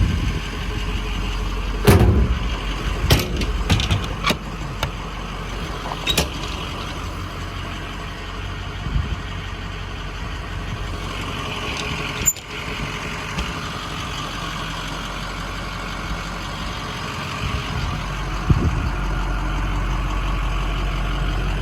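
Ford 6.0 Power Stroke V8 turbo-diesel idling steadily, with several sharp knocks and clicks in the first six seconds and another sharp click about twelve seconds in.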